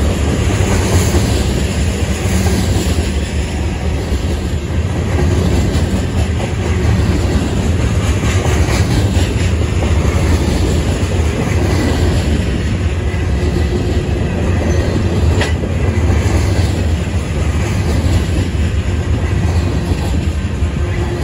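Freight train cars (tank cars and covered hoppers) rolling past close by: a steady, loud rumble of steel wheels on the rails with clickety-clack over the rail joints. There is one brief sharp clank about fifteen seconds in.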